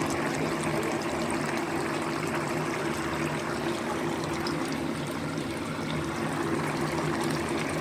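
Chicken wings simmering in sauce in a non-stick pan: steady bubbling and sizzling, over a low steady hum.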